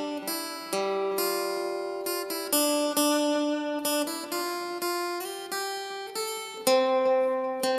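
Crafter steel-string acoustic guitar playing a single-note lead melody, picked one note at a time with each note left ringing into the next. A louder, stronger-picked note lands near the end.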